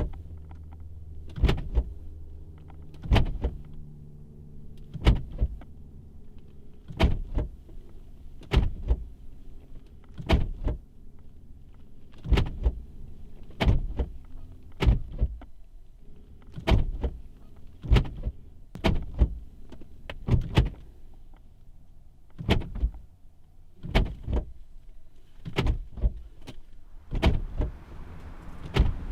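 Car door handle pulled over and over, each pull a sharp clack, about every one and a half to two seconds, some pulls coming in quick pairs; the door stays locked.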